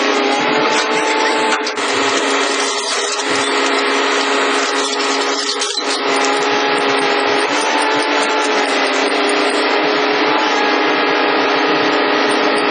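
Hydraulic machinery driving a pile breaker, running steadily with a constant whine of several held tones.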